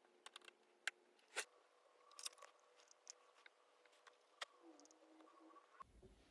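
Faint, irregular small clicks and taps from hand tools working on an iPhone's internals as cable connectors are pressed on and tiny screws tightened, a dozen or so scattered ticks over a faint steady hum.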